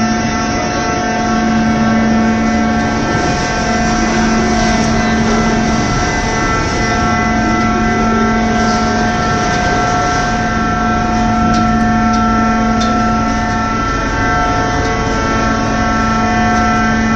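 Hydraulic scrap metal baler running: a steady machine drone with a stack of constant whining tones. A lower hum cuts in and out every couple of seconds, and a few faint clicks come in the second half.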